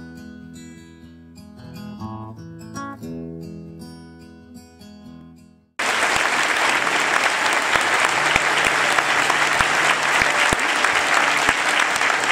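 Soft instrumental music with held and plucked notes that fades away. About six seconds in it cuts suddenly to loud, sustained audience applause.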